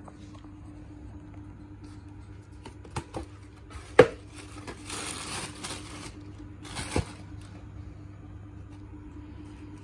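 A cardboard shoebox being handled and its tissue paper unwrapped: two sharp knocks about three and four seconds in, the second the loudest, then crisp paper rustling for about a second and a half and a shorter rustle near seven seconds in. A faint steady hum runs underneath.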